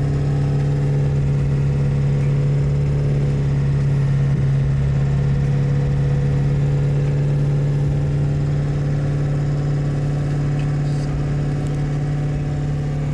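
Pickup truck driving at highway speed, heard from inside the cab: a steady low drone of engine and road noise.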